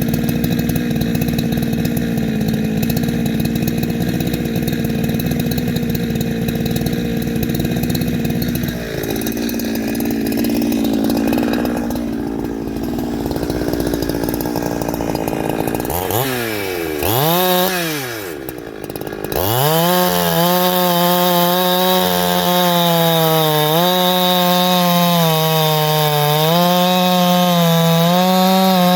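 Two-stroke chainsaw with a shotgun-style pipe muffler running at high revs. About halfway through the engine note drops sharply and climbs back. After that it runs on with the pitch wavering up and down.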